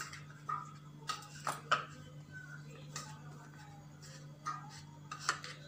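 Steel spoon clicking against a bowl as paneer cubes are stirred with chilli powder and salt: a handful of light, irregular taps over a steady low hum.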